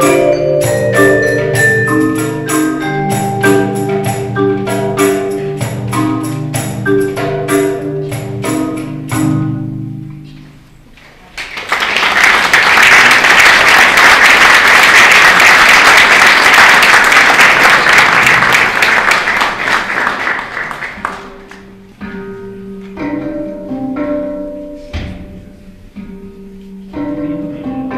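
A percussion ensemble playing marimba and other mallet instruments, the piece ending about ten seconds in. After a brief pause an audience applauds for about ten seconds, the loudest sound. Then a handpan starts, single struck notes ringing out.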